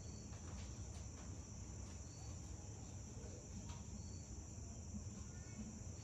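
Faint steady chorus of crickets, an even high drone, with a short faint high chirp about every two seconds.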